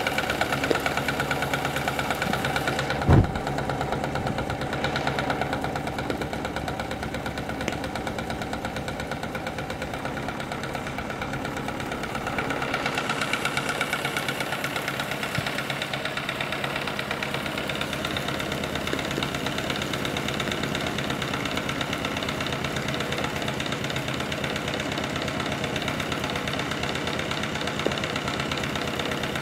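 Small homemade two-cylinder double-acting steam engine running steadily, a fast even mechanical beat. A single sharp thump about three seconds in.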